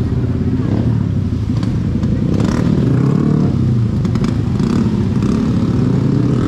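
Motorbike engines running close by in busy street traffic, with a few light clacks.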